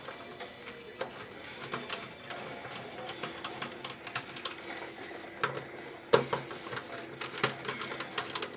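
A Torx 10 bit screwdriver backing screws out of an Xbox 360's plastic case, making irregular small clicks and taps, with a sharper knock about six seconds in.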